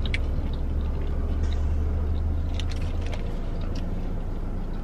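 Low steady rumble inside a parked car's cabin that eases about three seconds in, with a few faint crunching clicks of someone eating fried chicken snacks.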